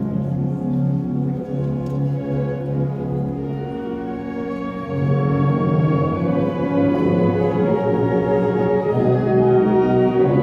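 Orchestral music with brass playing long held chords, growing louder about five seconds in.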